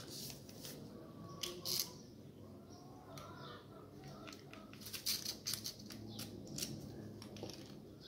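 Faint light metallic clicks and rattles from an Opel/Vauxhall ignition lock cylinder being worked out of its barrel housing by gloved hands, with a cluster of clicks around the middle.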